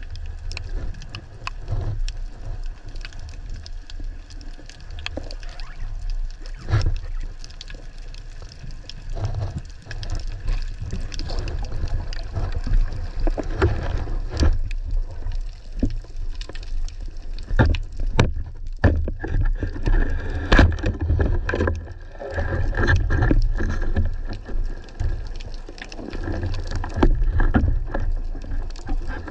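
Underwater sound through a waterproof camera housing: a continuous low rumble of moving water, with many scattered clicks and crackles that grow busier and louder in the second half.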